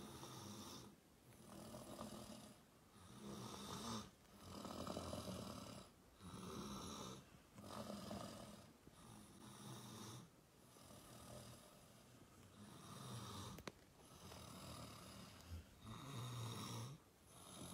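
Faint, soft snoring in slow, even breaths, about one every second and a half, from a sleeper lying close by.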